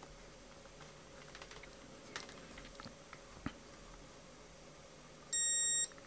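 Faint clicks of fingers handling thin headphone wires and a crocodile clip, then near the end a multimeter's continuity beep sounds once for about half a second, signalling a closed circuit as the broken connector is pressed and makes contact.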